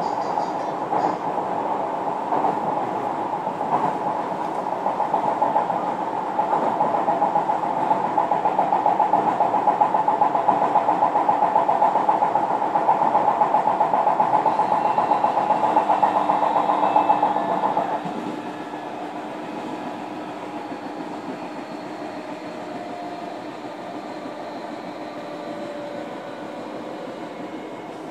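JR Kyushu 305 series electric train heard from inside the motor car while running between stations: a steady mix of motor and wheel-on-rail noise. About eighteen seconds in, the loud running noise drops sharply to a quieter level, with faint steady tones left.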